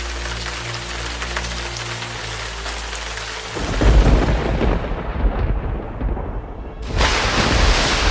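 Steady rain, then a loud rumble of thunder that breaks in about three and a half seconds in and dies away over about three seconds before the rain comes back loud.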